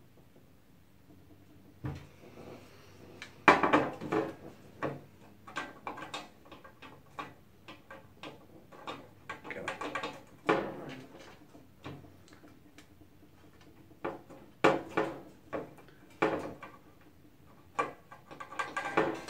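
Parts of a computer case being handled and worked loose during a teardown: irregular knocks, clicks and clattering, with louder clusters of knocks about a third of the way in and again late on.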